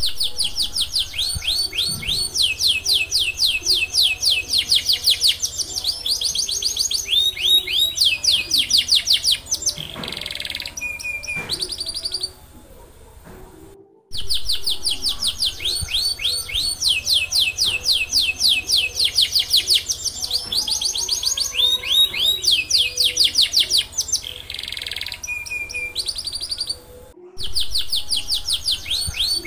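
Domestic canary singing a long, fast song: rapid trills of high, falling notes, a short buzzy phrase and a brief whistle. Twice the song breaks off for a moment and starts over with the same phrases.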